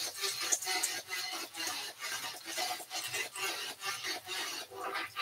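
Background music with a steady beat, about three beats a second, over the sizzle of croquettes frying in oil as metal tongs turn them in the pan.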